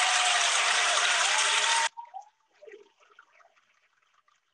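A loud burst of rushing, hissing noise with a faint wavering tone inside it, which cuts off suddenly about two seconds in and leaves only faint scattered sounds.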